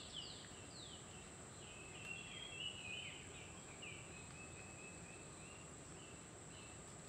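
Wild birds calling: a run of quick falling notes in the first second, then chattering and fainter short calls, over a steady high-pitched insect drone.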